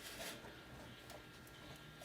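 Faint, scattered light clicks and scrapes of a screwdriver turning a screw into a motherboard standoff, with a slightly stronger scrape about a quarter second in.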